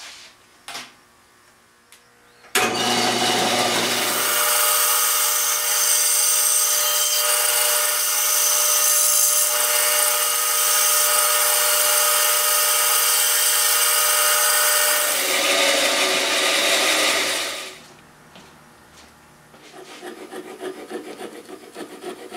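Band saw starting abruptly and cutting wood for about fifteen seconds, trimming excess wood from a patch on a teak knife handle, then stopping. A couple of seconds later a hand file starts rasping the wood in quick, irregular strokes.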